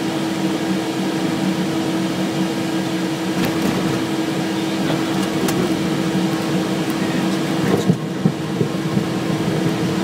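Steady cockpit noise of a Cessna Citation Excel business jet on its landing run on a wet runway: twin turbofan engine and airflow noise with a steady low hum. A few short knocks come about eight seconds in.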